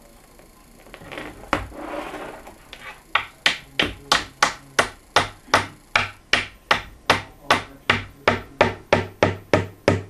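A rustling noise, then a steady, even run of sharp knocks, about three a second, like tapping or chopping on wood.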